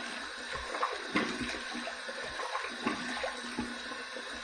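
Water running steadily into a bathroom sink, with light splashing.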